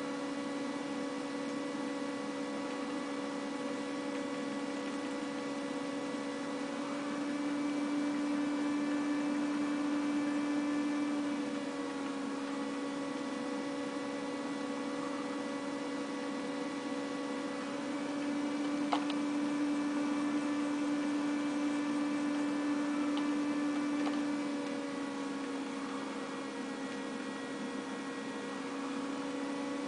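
Steady electrical hum made of several pitched tones, swelling slightly twice, with an occasional faint click.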